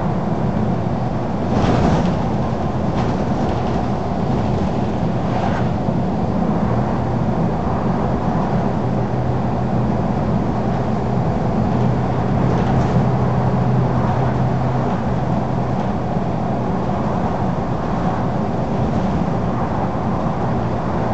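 Scania single-deck bus's diesel engine driven hard at speed, heard from inside the saloon as a steady drone with road noise, its note holding steady through the middle and easing off later. A sharp knock from the body about two seconds in, with smaller rattles after.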